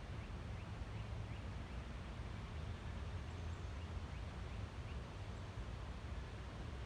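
Wind buffeting the microphone, a steady low rumble, with a few faint short bird chirps over it.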